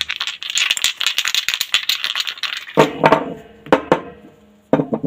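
Small plastic paint jars rattling and clicking together as they are shaken in the hands. This is followed by about four separate clunks, with a short ring, as the jars are set down on a table one after another.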